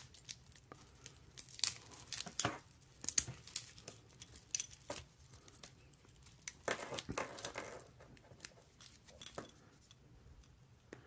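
Thin plastic protective film being peeled and crinkled off a stainless-steel watch bracelet, in short irregular crackles and clicks, with a longer crinkling stretch about seven seconds in.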